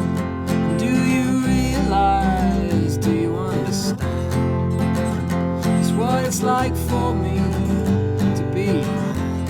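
Instrumental acoustic song passage: strummed acoustic guitar over low bass notes that change every second or so, with no singing.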